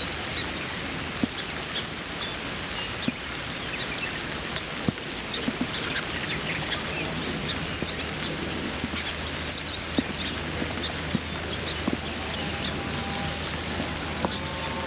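Steady rain falling, with many individual drops ticking close by and a few faint bird chirps.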